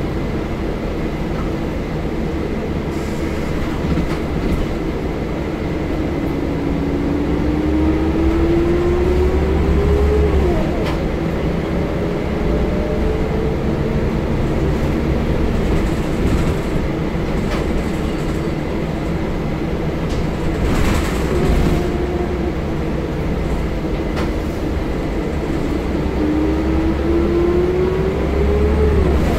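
Scania L94UB bus under way, heard from inside the passenger saloon: a steady drivetrain rumble with a whining note that climbs and then drops back sharply, once about a third of the way in and again near the end, as the gearbox changes up. Light rattles from the body now and then.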